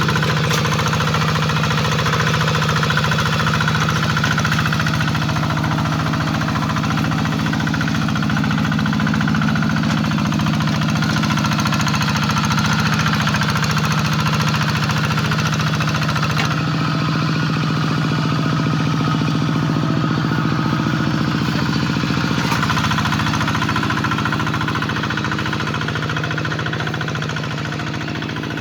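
Single-cylinder diesel engine of a two-wheel hand tractor running steadily under load while plowing a rice paddy. Its note shifts slightly a little past halfway, and it gets somewhat quieter near the end.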